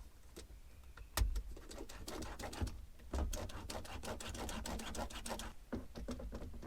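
Hands and tools working on a car's speaker fitting, giving an irregular run of clicks and rattles of small hard parts, with a heavier knock about a second in.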